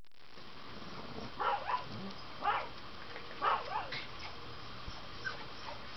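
A dog giving about five short, high yips and whines, spaced roughly a second apart, in the middle of the stretch.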